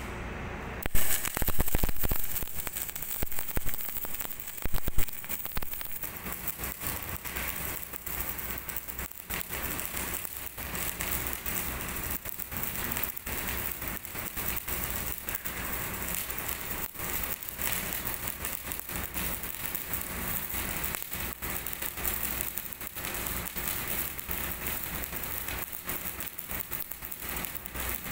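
MIG welding arc crackling and sizzling steadily as wire is fed into a seam on thick steel plate. A few louder knocks come in the first five seconds.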